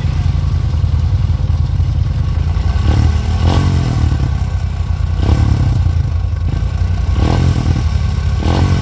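ATV engine running with a steady low drone, revved in about five short rising bursts as the quad sits high-centered in a mud hole trying to pull free.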